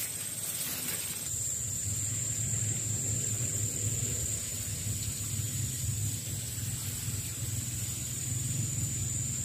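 Continuous high-pitched insect drone over a low, steady rumble.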